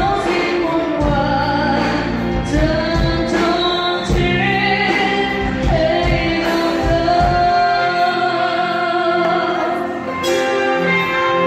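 Live band music: a woman sings lead through a microphone over electric guitars and drums, holding long notes. The bass and drums thin out briefly about eight seconds in, then the full band comes back.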